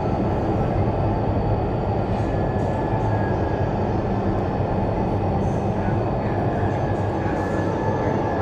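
Indoor skydiving vertical wind tunnel running: the fans and rushing air make a loud, steady roar, with a faint high whine over it.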